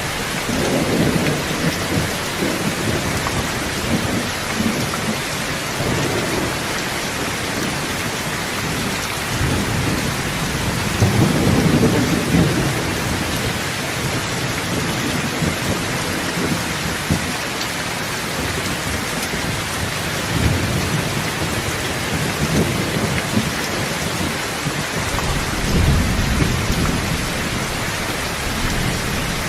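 Steady heavy rain with rolling thunder. Low rumbles swell and fade several times, the loudest about a third of the way in and another deep one near the end.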